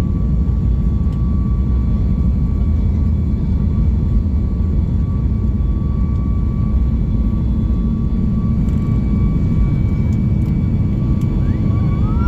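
Airliner cabin noise in flight: the jet engines and airflow make a steady low rumble, with a thin, even whine over it.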